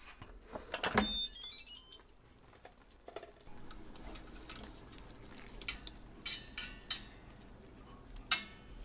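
Instant Pot pressure cooker playing a short electronic chime of rising notes about a second in, as its lid is opened. Then light metallic clinks and knocks as the wire steam rack is lifted out of the stainless steel inner pot.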